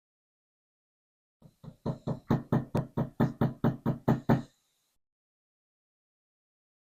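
A quick run of about a dozen knocks, a few soft ones and then hard, evenly spaced ones at about four a second, stopping suddenly.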